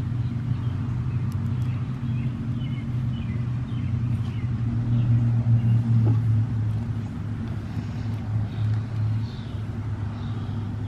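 A steady low mechanical hum, like a motor running nearby, with faint scattered high chirps over it.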